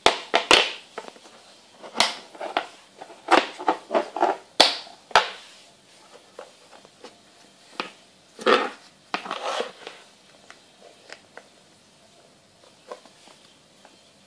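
Hard plastic rig box being handled, unclipped and opened: a quick series of sharp plastic clicks, snaps and rattles, busiest in the first five seconds, with another clatter about eight and a half seconds in, then only a few faint taps.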